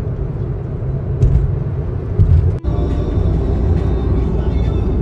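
Steady low rumble of a car on the road, engine and road noise, with a brief break about two and a half seconds in.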